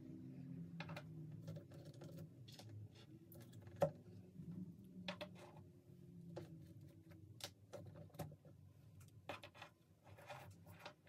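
Light clicks and taps of small metal components being handled and set down one at a time on a wooden workbench, the sharpest about four seconds in, over a faint low hum.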